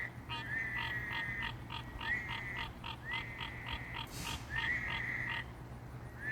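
Night chorus of frogs calling: long held notes at one pitch, each opening with a short upward slide, repeat over a fast, even series of pulsed calls at about three or four a second. A brief hiss comes about four seconds in.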